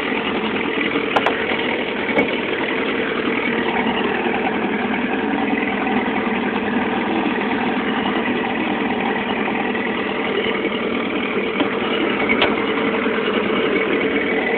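Outboard motor on a small boat running steadily at low trolling speed.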